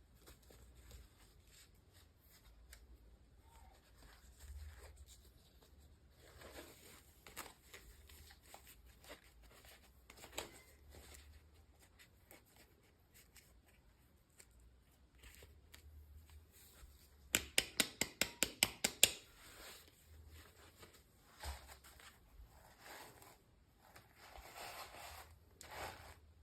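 Toy packaging being handled and opened by hand: light rustling and scattered small clicks. About two-thirds of the way through there is a quick run of a dozen or so sharp clicks, some six or seven a second, that is the loudest thing here.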